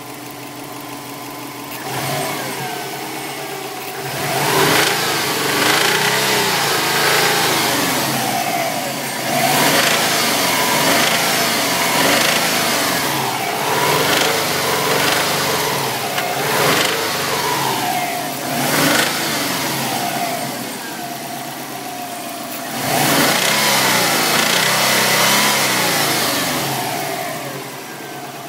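Turbocharged flat-four engine of a 2005 Subaru WRX idling, then revved in about six blips and let fall back to idle. It carries a knock that the owner suspects is rod knock from a spun bearing.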